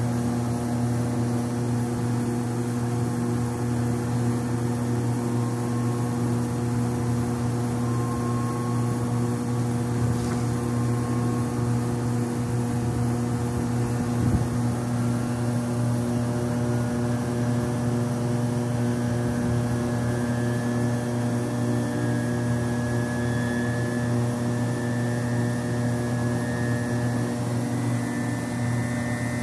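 Beckman J2-21 refrigerated centrifuge running up to speed: a steady low hum with a faint whine that slowly rises in pitch as the rotor accelerates from about 4,000 toward 10,000 rpm. A single short knock about halfway through.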